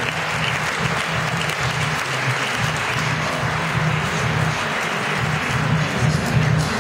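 Audience applauding steadily, over background music with a steady bass beat.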